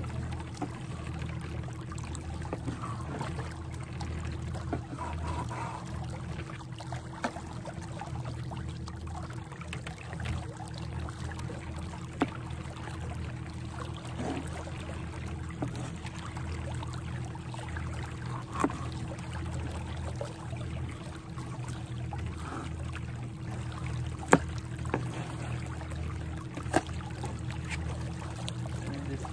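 Steady trickle of water with a low hum underneath, and a few sharp taps of a knife on a plastic cutting board as a fish is cut up.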